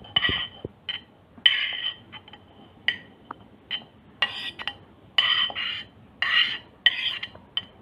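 Metal spoon scraping and clinking against a plate again and again as grated coconut is scooped off it, each stroke ringing briefly.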